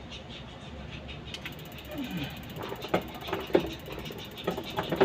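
Hand tools clicking and clacking against metal, like a ratchet being worked, in separate sharp clicks that come more often in the second half.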